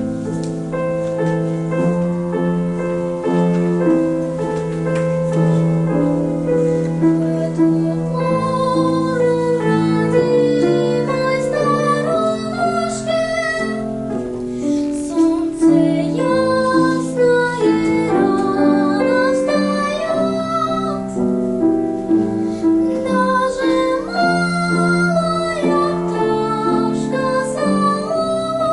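Music: a piano accompaniment starts suddenly, and about eight seconds in a girl's singing voice comes in over it.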